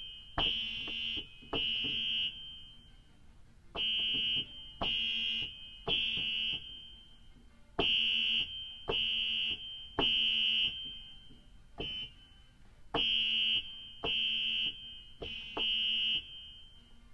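A Yamaha DGX-230/YPG-235 keyboard's ringtone voice, transposed up to its highest octave, with one high note struck again and again. The notes come about a second apart, mostly in groups of three with short pauses between, imitating a fire alarm's beeping.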